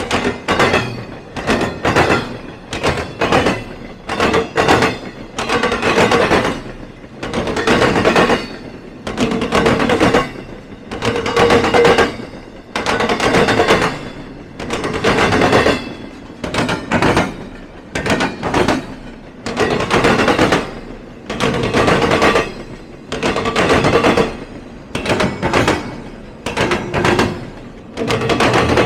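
Freight train wheels clattering over a rail diamond crossing, with a quick run of sharp clacks about every one to two seconds as each car's trucks cross, some with a metallic ring.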